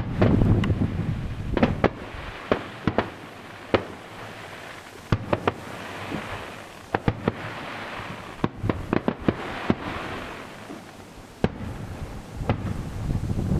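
Aerial fireworks display: a deep boom of a shell bursting at the start, then many sharp cracks and bangs at irregular intervals, with a hissing crackle through the middle.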